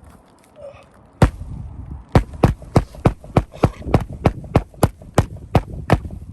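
A rapid, even series of sharp knocks, about three a second, starting with a single knock a little over a second in.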